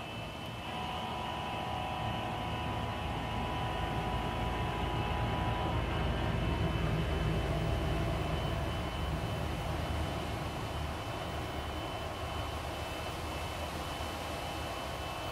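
MTH model freight train rolling along its garden track: a steady low rumble of wheels and cars on the rails, getting somewhat louder for a few seconds midway.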